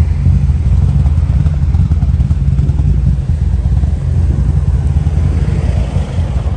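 A car engine running steadily with a deep, even low rumble.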